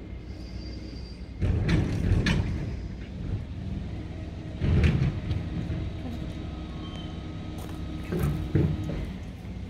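Waste collection truck's engine running steadily, with loud mechanical clanks and knocks from the truck about a second and a half in, again around five seconds and twice near eight seconds.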